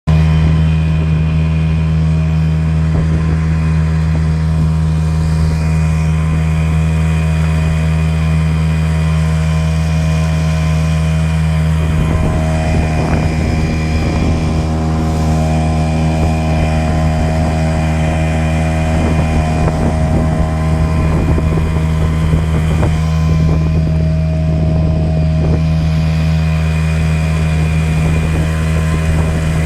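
Yamaha 5 hp outboard motor running steadily at one speed, with a rougher crackling noise mixed in through the middle stretch.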